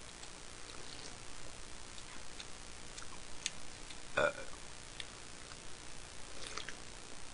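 A woman's single short burp about four seconds in, between gulps of canned cola, over faint scattered ticks.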